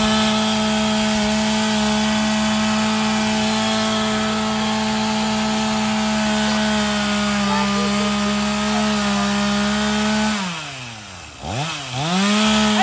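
Gas-powered two-stroke chainsaw held at full throttle with a steady, even pitch while cutting into a tree. About ten seconds in the throttle is let off and the engine note falls, then it is revved up once more near the end.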